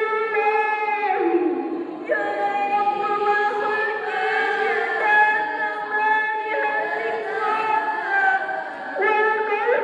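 A group of girls' voices singing an Arabic poem together in unison, in long drawn-out notes with short breaks between phrases.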